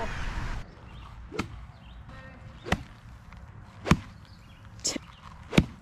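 Golf iron swung hard into turf, taking divots: five short, sharp swish-and-strike sounds roughly a second apart.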